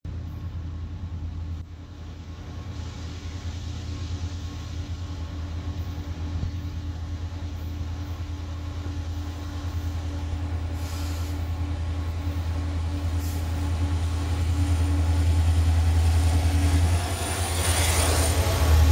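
Diesel freight locomotives running under power, a low engine drone growing steadily louder as the three units (EMD SD70M-2 leading, GE ET44AC and ES44AC trailing) approach and pass beneath. Near the end the sound swells into a louder rush as the locomotives go by underneath.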